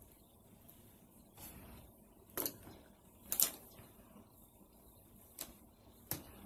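Faint handling noises as an eyeliner pen is handled: a few short clicks and knocks, the loudest about two and a half and three and a half seconds in, with a softer rustle before them.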